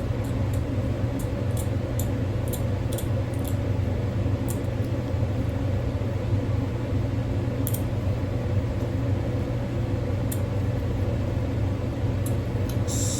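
A steady low machine hum, with scattered light clicks and, near the end, a quick run of fine scraping strokes from a dental tool working tartar off a Yorkie's teeth.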